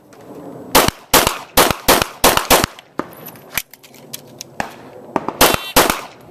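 Handgun shots fired rapidly: a quick string of about eight shots in under two seconds, a short pause with a few faint ticks, then a pair of shots close together near the end.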